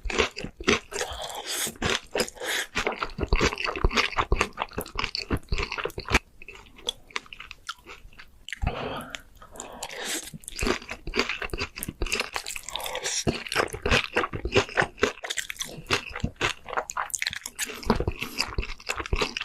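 Close-miked mukbang eating: a person biting and chewing crunchy food, with dense, irregular crunches that ease off briefly about six to eight seconds in.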